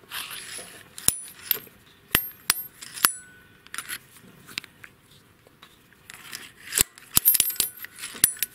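Valve stem seal installer, a metal sleeve on a rod, clinking against the valve stem as a new valve stem seal is pressed down onto the valve guide. The sharp metallic clicks ring briefly and come quicker near the end, with some short scraping between them.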